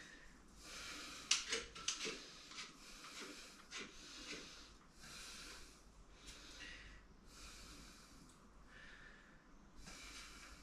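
A person breathing close to the microphone, about one breath a second, with a few light clicks and knocks in the first few seconds.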